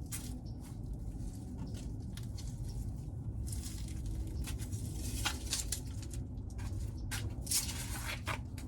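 Scattered clicks and rustling, with two longer stretches of scraping hiss, over a steady low hum: handling noise as equipment and cords are moved and plugged back in.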